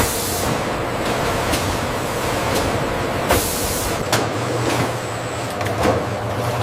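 Steady hiss and hum of factory machinery, with a few sharp knocks and clanks scattered through it.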